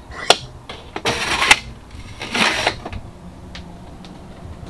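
Plastic dashboard ashtray drawer in a truck cab being worked by hand: a sharp click, two short sliding rasps, then a faint click.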